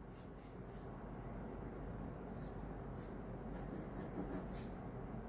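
Faint scratching of handwriting in short strokes over a low steady hum.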